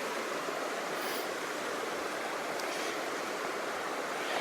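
Steady rushing of Kinman Creek's flowing water.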